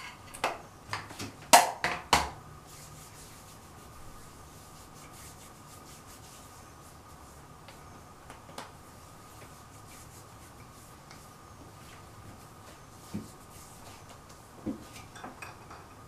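Small objects handled on a hard surface: a quick cluster of sharp clicks and knocks in the first couple of seconds, then a faint steady hum with a few soft ticks, and a few more clicks near the end.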